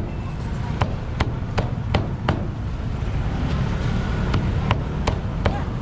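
Cleaver chopping meat on a chopping block: five quick, evenly spaced chops, a pause of about two seconds, then four more. A steady low rumble runs underneath.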